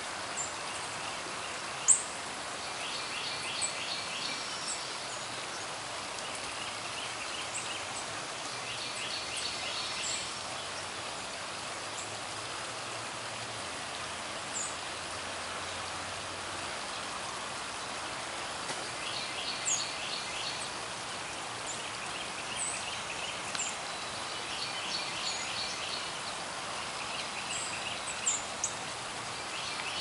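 Small songbirds calling: short trilled phrases repeated several times, with scattered thin high chips, over a steady outdoor hiss. A single sharp click about two seconds in.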